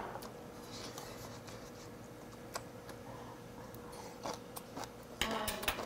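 A person eating from a bowl: scattered light clicks of metal chopsticks against a stainless steel bowl, with louder eating sounds from the mouth about five seconds in.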